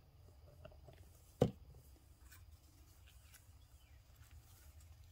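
A single sharp knock about one and a half seconds in as a plastic glue bottle is set down on the work table, among faint rustles and light taps of fabric and paper being handled, over a low steady hum.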